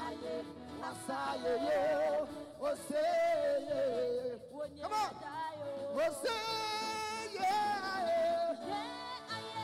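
Live gospel praise music: a male and a female worship leader singing into microphones over the band, with electric bass underneath. About six seconds in, a voice holds a long high note.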